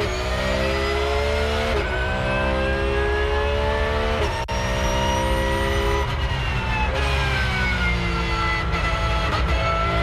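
Porsche 911 GT3 R race car's naturally aspirated 4.0-litre flat-six, heard from inside the cockpit. It pulls hard with rising pitch through upshifts about two and four and a half seconds in. It then falls in pitch under braking, with a downshift near the end.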